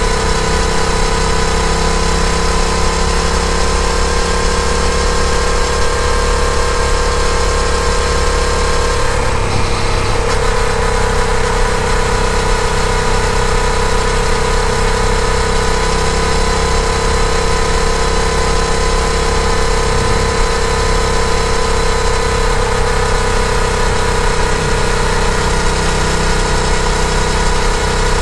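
Yamaha FZ-07's 689 cc parallel-twin engine running at a steady cruise, with a low wind rumble underneath. About nine seconds in the engine note breaks briefly, then settles back to a steady pitch.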